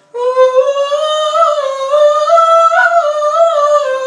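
A man singing one long, high, wordless note, slowly sliding up and down in pitch.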